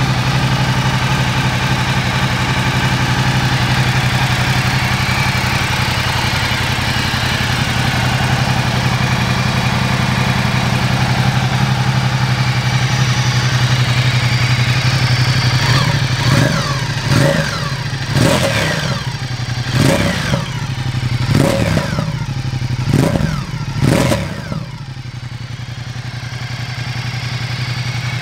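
Ducati XDiavel S's 1262 cc Testastretta L-twin, just started, idling steadily. From about halfway it is blipped about seven times in quick succession, the revs rising and falling each time, then it settles back to a quieter idle. It runs on its standard exhaust, about as loud as you'd want.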